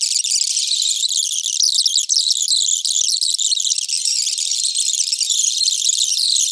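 Television news audio played sped up, so the voices and the bumper music come out shrill and chattering, with no low end left at all.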